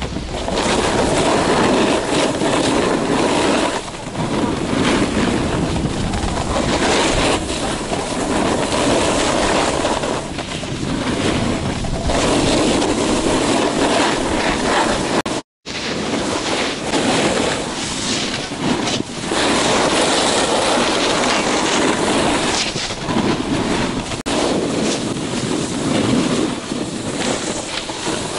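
Snowboard edges scraping and sliding over groomed snow while riding, with wind rushing over the microphone, swelling and easing with each turn. The noise drops out for a moment about halfway through.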